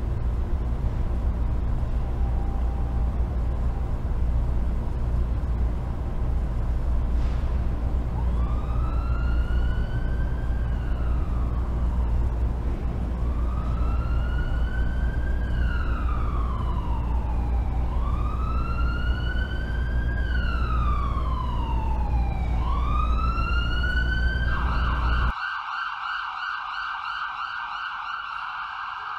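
Emergency-vehicle siren over a low, steady street rumble: from about eight seconds in it wails, rising and falling slowly about every five seconds, then switches to a fast warble near the end, when the rumble cuts off and the siren goes on alone before fading.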